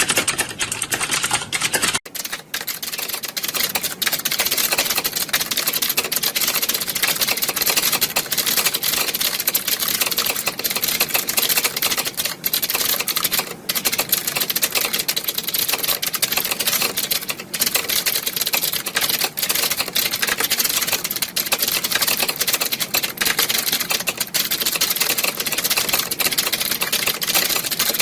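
Many computer keyboards being typed on at once, a dense, unbroken clatter of key clicks like a typing-test exam hall. A brief dip about two seconds in, after which the clatter sounds brighter.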